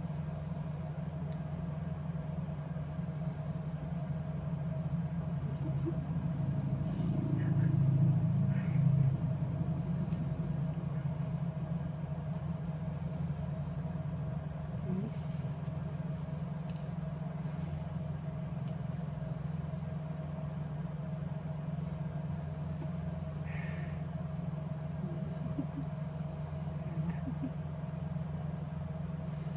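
Steady low mechanical hum with a faint steady whine above it, growing louder for a couple of seconds about seven seconds in.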